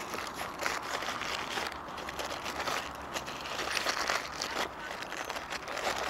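Paper burger wrapper crinkling and rustling in irregular crackles as it is unwrapped by hand.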